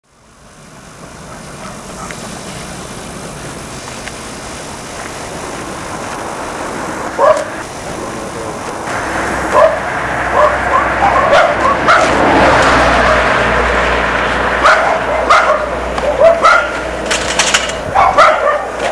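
A dog barking repeatedly, starting about seven seconds in and coming more often toward the end, over a steady background hiss.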